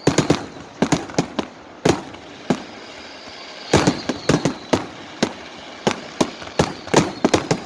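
Fireworks and firecrackers going off in a rapid, irregular series of sharp bangs, about two dozen in under eight seconds, over a faint high whistle.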